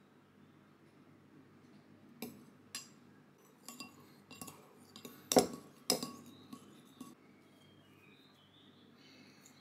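Stainless steel spoon stirring sauce in a ceramic bowl: a run of irregular clinks as the spoon knocks against the bowl, starting about two seconds in. Two sharp strikes about half a second apart in the middle are the loudest, and the clinking stops after about seven seconds.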